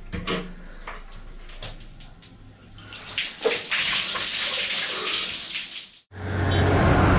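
Water poured from a plastic bucket over a person for a bucket bath: a few drips and small splashes, then from about three seconds in a heavy pour splashing onto a concrete floor. It cuts off abruptly near the end, and a steady rushing noise follows.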